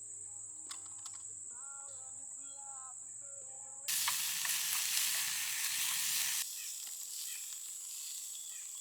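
Food sizzling in a hot pan: a loud, even sizzle starts abruptly about four seconds in and drops sharply to a softer sizzle after a couple of seconds. Crickets chirp steadily behind it.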